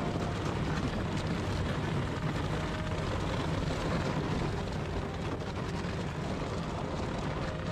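Snowdog tracked motorized dog running steadily as it pulls two loaded sleds across glare ice, its small engine and rubber track making a continuous mechanical drone.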